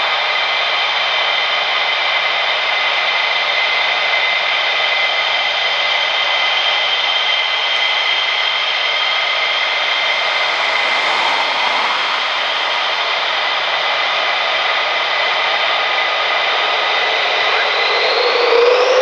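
F-15E Strike Eagle's twin turbofan engines whining at taxi power: several steady high tones over a broad rush. Near the end one tone rises sharply in pitch and the noise briefly grows louder as the engines spool up.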